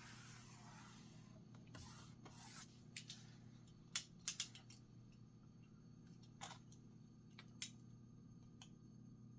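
Faint rustling of material being handled, then a few sharp scissor snips, one about four seconds in, a quick pair right after, and two more spaced out later, cutting off the excess of a stretched strip.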